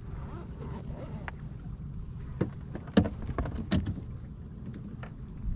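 Steady low rumble of wind and water around a small fishing boat on a lake, with a few sharp knocks and clicks about halfway through.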